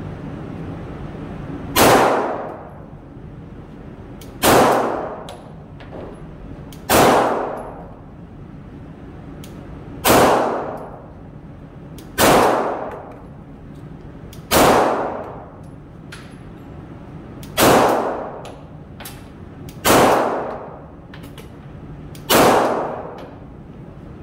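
Glock 34 Gen 5 MOS pistol firing 9mm rounds in slow, deliberate single shots, nine of them about two to three seconds apart, each followed by a long echo.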